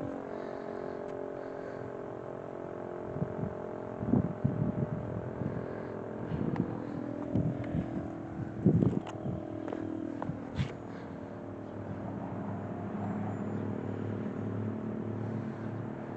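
Darley Champion rotating siren sounding a steady, even chord of several tones at once. Gusts of wind knock on the microphone now and then.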